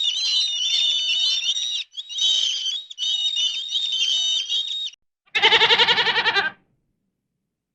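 A high-pitched, warbling chorus of many small calls, cut off abruptly a few times. About five seconds in, a goat gives one loud, quavering bleat lasting just over a second.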